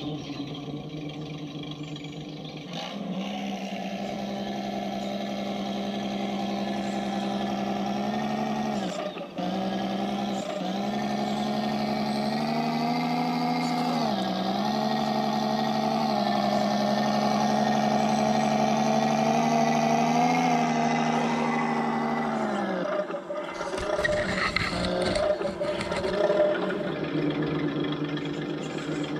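Radio-controlled scale crawler truck's electric drive whining steadily as it crawls over rocks, the pitch dipping briefly three times. The whine breaks off about three-quarters of the way through, giving way to clattering and knocks as the truck works over the rocks.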